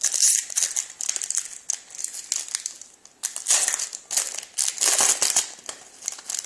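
Hands crinkling and tearing open the foil wrapper of a hockey card pack, in irregular bursts of rustling and crackling, loudest about three and a half and five seconds in.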